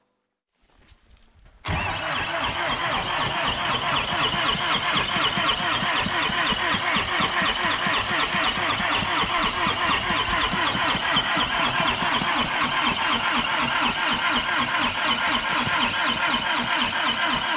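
Old diesel tractor engine on a cold start: a steady rhythmic clatter that comes in abruptly about two seconds in.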